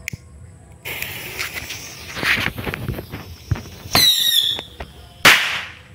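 A fuse hissing, then a batch of small chili firecrackers going off in a tin can in quick crackling pops. A short falling whistle comes about four seconds in, and one loud bang near the end.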